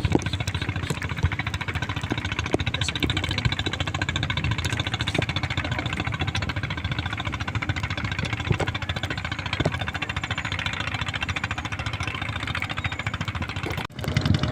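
A small engine running steadily at a constant idle-like speed, with a brief dropout near the end.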